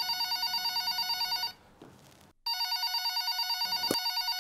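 Telephone ringing with a fluttering electronic ring: one ring ends about a second and a half in, and the next starts a second later. A short knock comes near the end.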